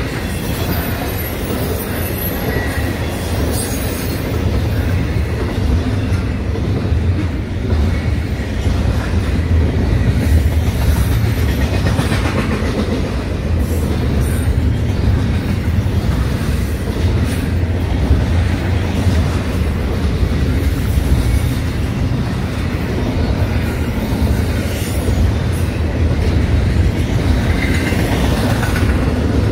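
Double-stack intermodal freight train rolling past close by: a steady deep rumble of the well cars' steel wheels on the rails, with faint clicks over the rail joints.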